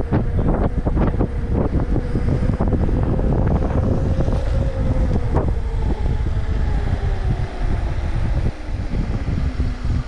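Wind buffeting the microphone while riding, a rough, gusty rumble. Under it a steady thin whine slowly drops in pitch over the second half.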